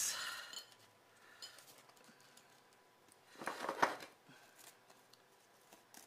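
Buttered pretzel bites dropped into a glass bowl of cinnamon sugar and rolled around by hand: one short, gritty scraping rustle about three and a half seconds in, then a few faint ticks.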